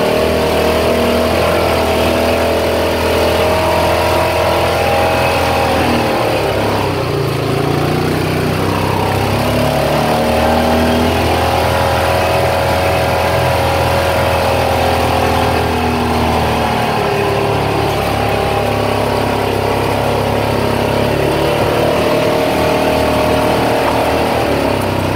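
Side-by-side UTV engine running under way, its pitch rising and falling several times as the throttle changes.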